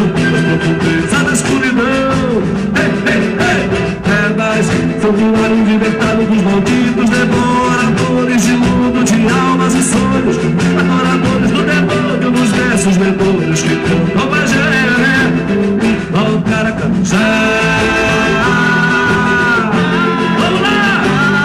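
Live boi-bumbá toada: a man singing the lead over a full band with a steady percussion beat.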